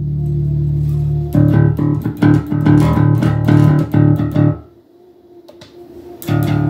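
Electric bass played through a Fender Rumble 25 V3 combo amp with its overdrive engaged: a held low note, then a quick run of plucked notes for about three seconds. It stops briefly about five seconds in and starts again with another held low note. The overdrive adds little gain, mostly volume.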